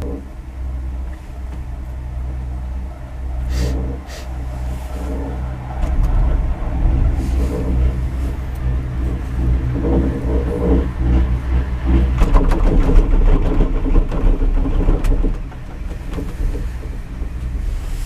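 Gondola cable-car cabin running along its haul cable, heard from inside the cabin: a steady low hum and rumble. From about six seconds in it grows louder and rougher with rattling as the cabin rolls through a support tower's sheaves, then drops back quieter about three seconds before the end.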